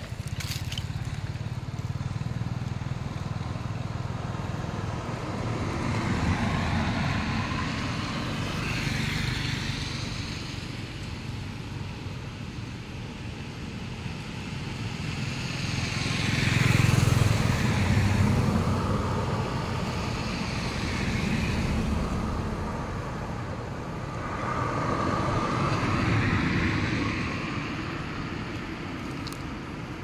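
Road traffic: several vehicles pass one after another, each a rising and fading rumble with tyre hiss that lasts a few seconds. The loudest pass comes a little past the middle.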